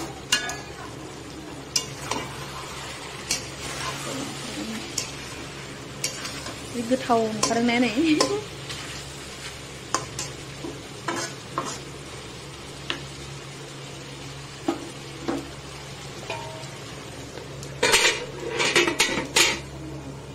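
A metal spatula stirs and scrapes chicken pieces frying in an aluminium kadai, with a steady sizzle and frequent short clinks against the pan. Near the end there is a quick run of loud metal clatters as the aluminium lid goes onto the pan.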